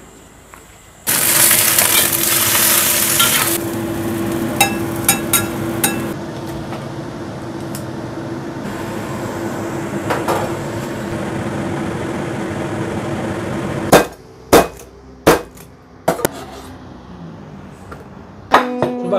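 Kitchen cooking sounds: a loud hissing boil or sizzle for a couple of seconds over a steady hum, light clinks of utensils and cookware, then several loud sharp knocks near the end.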